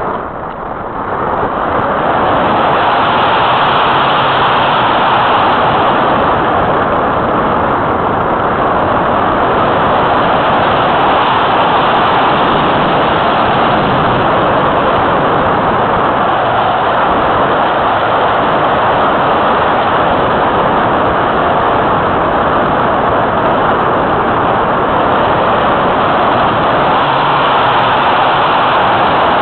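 Loud, steady rush of air over a keychain camera on the wing of an Easy Glider Pro RC motor glider in flight. It dips briefly about a second in, then holds level.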